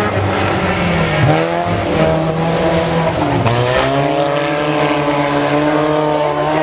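Several dirt-track race car engines running hard together, loud throughout. Their pitch dips and climbs again twice, about a second in and again about three and a half seconds in.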